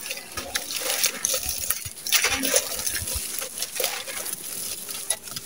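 Hands crushing and crumbling a lump of damp sand cement over a clay pot: a close, gritty crackling of many small irregular crunches, with crumbs pattering down, busiest in the middle of the stretch.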